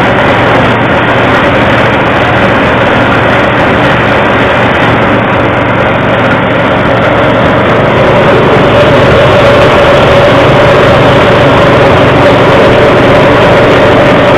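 Livestock forage chopper machine running steadily with a loud, even drone and a steady tone through it; it gets a little louder about eight seconds in.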